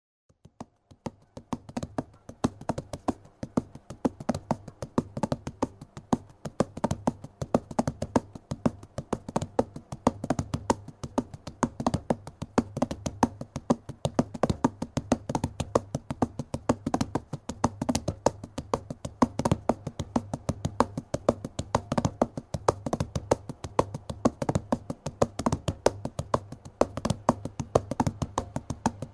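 Rapid, irregular sharp clicks and taps, several a second, over a low steady hum, fading in during the first couple of seconds.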